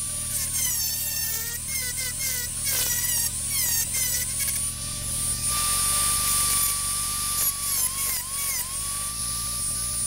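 Dremel rotary tool hand-grinding the inside of a welded rifle receiver: a high electric-motor whine whose pitch dips again and again as the bit bites into the metal, with a grinding hiss over the second half.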